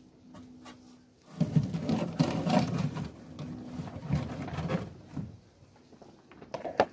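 Dry straw rustling and crackling as a hand rummages through a hen's nest inside a metal can, feeling for eggs. A few sharp clicks near the end, as an egg is set into a plastic bowl.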